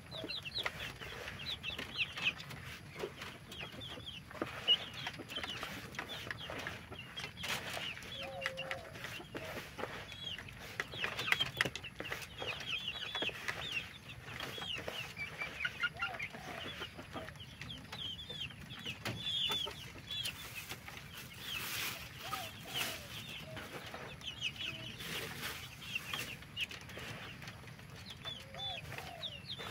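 Chickens calling: a dense, continuous run of short high cheeps, with an occasional lower cluck.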